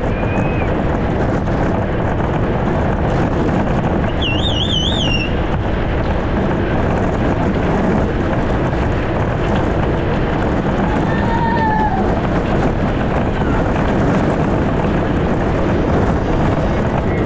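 Wind rushing over the microphone and tyre rumble on asphalt as an unpowered soapbox cart rolls downhill at 40 to 50 km/h, a loud steady noise. About four seconds in, a brief warbling high whistle; near twelve seconds, a short falling tone.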